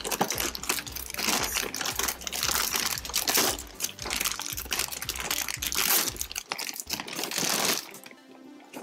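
Thick clear plastic bag crinkling and rustling as a large bagged toy piece is handled and lifted out of a cardboard box, easing off near the end.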